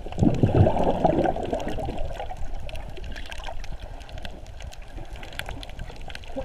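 Muffled water rushing and gurgling around a submerged camera, loudest for the first two seconds and then steadier, with scattered faint clicks throughout.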